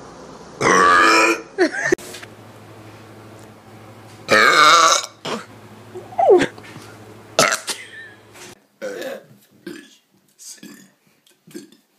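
Loud human belches: two long ones, the first about half a second in and the second about four seconds in, then shorter bursts of sound.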